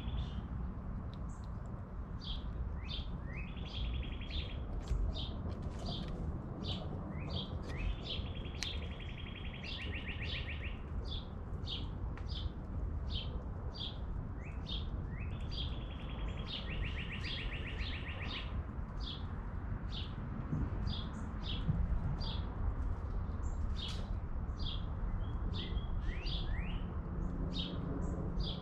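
Songbird chirping over and over: short, sharp falling notes about two a second. Three times a rising note runs into a rapid trill. A steady low rumble lies underneath.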